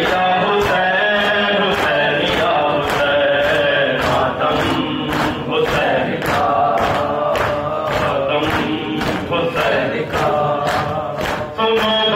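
Shia noha chanted by male voices, with a crowd beating their chests in matam in time: sharp hand slaps at roughly two a second under the singing.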